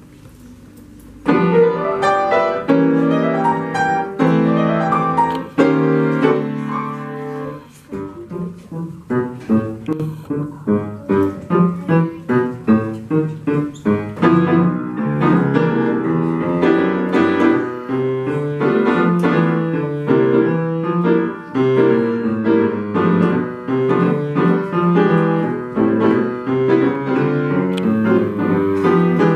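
Upright piano played solo. The piece begins about a second in with loud held chords, then after a short dip near eight seconds moves into evenly pulsed notes and chords, about two a second.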